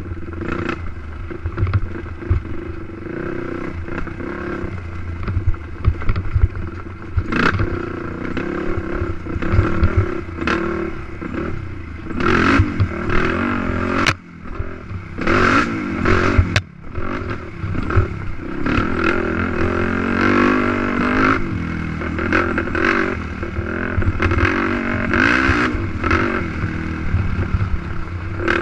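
Race ATV engine revving up and down with the throttle, with rattling and knocks from the quad over rough track. About halfway through the sound drops out sharply twice for a moment.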